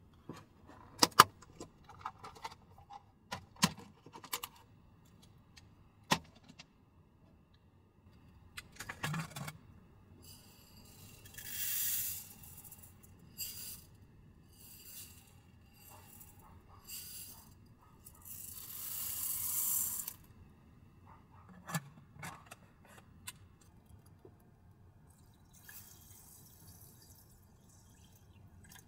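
Dry rice poured from a glass jar into the inner pan of a small box-shaped rice cooker, in two hissing pours of a second or two each, amid clicks and knocks of the jar and its lid. Near the end, water from a plastic bottle trickles quietly onto the rice.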